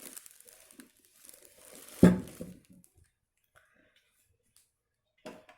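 Plastic packaging crinkling as vacuum cleaner parts are unwrapped and handled, with a loud thud about two seconds in as a part is set down, and a lighter knock near the end.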